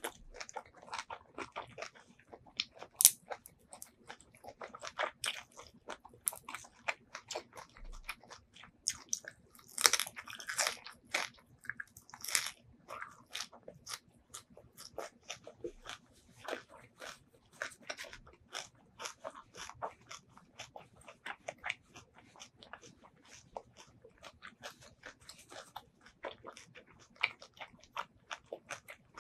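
Close-miked eating of crunchy food: sharp crunching bites and chewing throughout, loudest in a cluster of bites about a third of the way in, over a faint steady hum.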